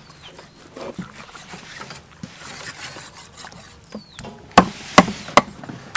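Cleaver cutting raw beef on a wooden chopping block, with three sharp chops through the meat into the wood close together near the end.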